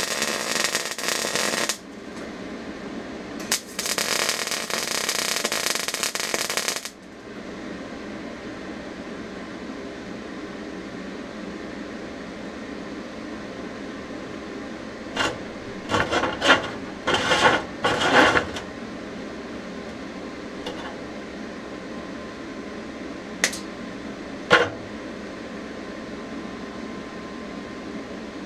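Two short MIG tack welds: the arc of an Eastwood MIG 250 burning .035 ER70S-6 wire on steel plate crackles and hisses for about two seconds, then again for about three seconds. Later comes a flurry of sharp metal clinks and knocks, then two more, as the tacked steel plate is handled.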